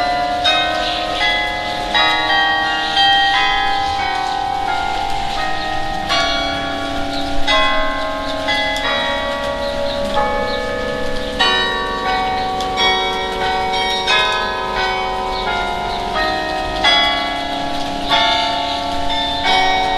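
Church carillon being played: a tune of struck tuned bells, often several notes together as chords, each note ringing on under the next.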